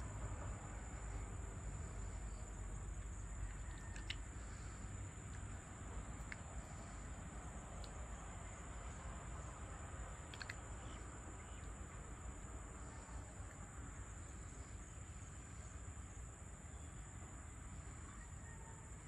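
Insects trilling steadily in a high-pitched tone, over a low rumble, with a few short chirps scattered through the first half.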